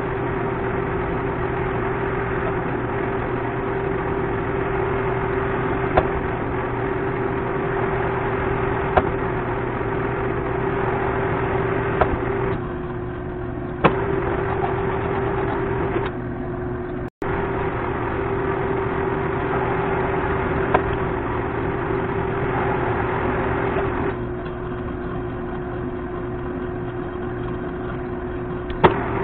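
Baby Monarch manual lathe running steadily with its chuck spinning while single-point cutting a thread, giving a steady mechanical hum with a sharp click every few seconds.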